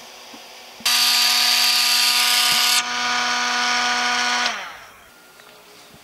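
Electric alarm siren switched on by the relay: a loud steady buzzing tone that starts abruptly about a second in, gets a little quieter partway through, and winds down with a falling pitch at about four and a half seconds.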